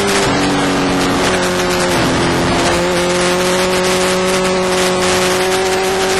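Suzuki GSX-R1000's inline-four engine running at road speed through bends. Its note drops a little about a third of a second in, then rises again between two and three seconds in and holds steady, with wind rushing over the microphone.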